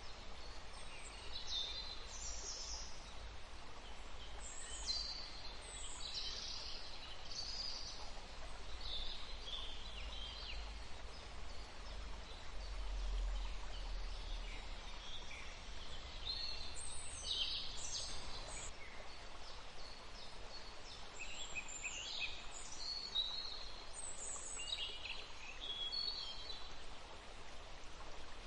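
Several songbirds chirping and singing in short, overlapping high phrases, over a steady background hiss and a low rumble that swells about halfway through.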